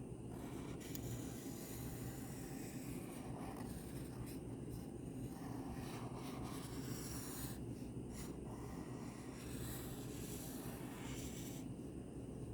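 Pen strokes scratching on paper in short, irregular runs as a drawing is outlined, over a steady low hum.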